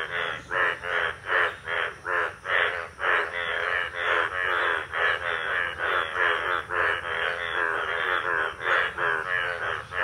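A chorus of Indian bullfrogs calling, many loud croaking calls overlapping at about two to three a second without a break. These are breeding-season males calling for females.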